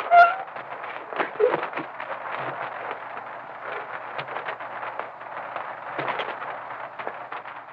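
Steady hiss and crackle of an early sound-film soundtrack, with a faint low hum and scattered small clicks, and a couple of slightly louder knocks about a second and a half in.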